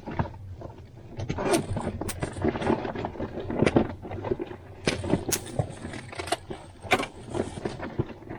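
A person handling and moving things about: irregular knocks, clicks and light clatter over rustling and shuffling.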